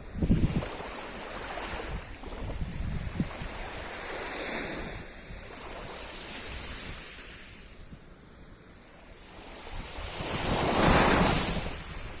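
Sea surf breaking and washing on the shore, swelling and fading, with one large wave building late and breaking loudest near the end. Wind rumbles on the microphone underneath.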